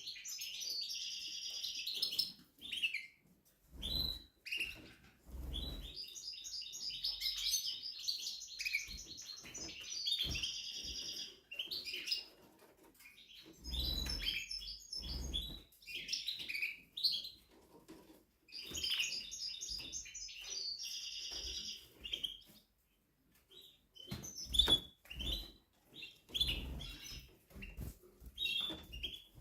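Timbrado Español canary singing: phrases of rapid rolling trills and quick repeated notes, broken by short pauses. A few low thumps come between phrases.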